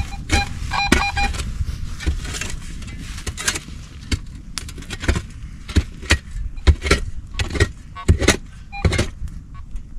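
Metal detector giving short electronic beeps as its coil is swept over loose excavated soil, amid repeated sharp clicks and scrapes of stones and gravel being raked through by hand and stick.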